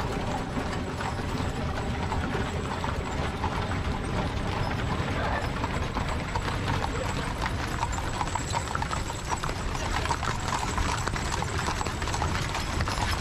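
A mule team's hooves clip-clopping on an asphalt road as they pull a covered wagon, the hoofbeats growing clearer as the team comes alongside.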